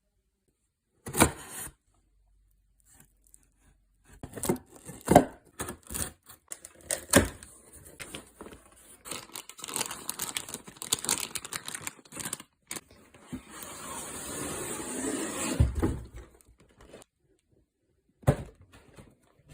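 A LEGO set box being opened by hand: a run of sharp knocks and clicks on cardboard, then several seconds of continuous tearing and crinkling, with a heavy thump near the end.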